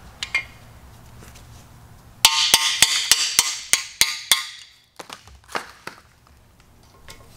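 Hammer striking a screwdriver held against a core plug in a cast-iron Mopar 318 small-block, knocking the plug out. About eight quick, ringing metal strikes, roughly three a second, are followed by a few lighter knocks.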